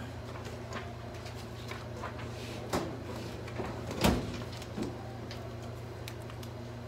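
Papers and hanging file folders being handled in a filing drawer: scattered rustles and a few sharp clacks, the loudest a little past halfway, over a steady low hum.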